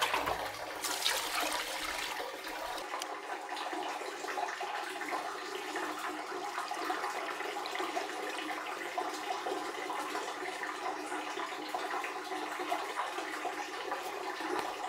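Water sloshing and pouring as rice is rinsed in a plastic basin and the cloudy rinse water is tipped out onto concrete; a steady splashing and running-water sound.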